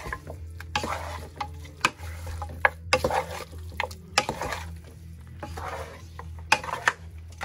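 Wooden spatula stirring and turning seasoned, sauce-coated raw chicken pieces in a metal saucepan: squelching of the meat with irregular knocks of the spatula and chicken against the pan.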